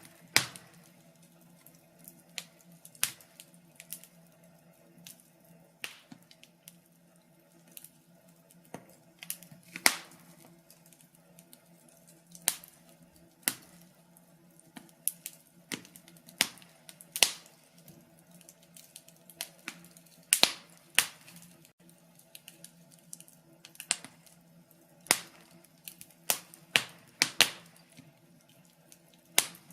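Wood fire crackling in a fireplace: sharp, irregular pops and snaps, one or two a second, some much louder than others, over a faint steady low hum.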